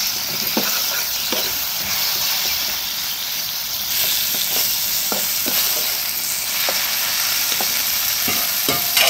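Cut okra frying in hot oil in a kadai, sizzling steadily, while a spatula stirs it with light scrapes and knocks against the pan.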